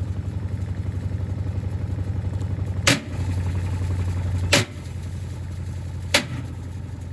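Gorenje SensoCare washing machine running with heavy bricks in its drum: a steady motor hum with a fast, even pounding, broken three times by a loud bang about a second and a half apart.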